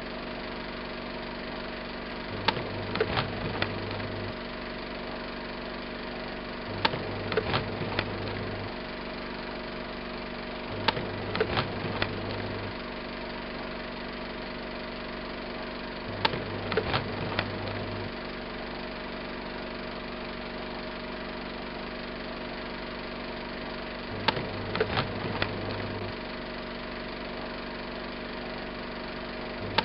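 Movie projector running: a steady motor hum with a light mechanical clatter, and a louder burst of clicking every four to eight seconds.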